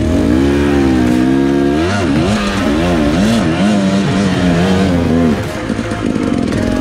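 KTM enduro dirt bike engine revving up and down over and over as the throttle is worked to get the bike up a steep rocky climb. Near the end it settles to a lower, steadier running.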